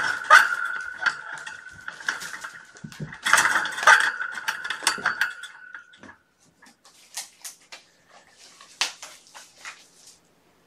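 Dishes clinking and clattering as they are handled, over a steady high tone; the tone stops about six seconds in, leaving scattered lighter taps.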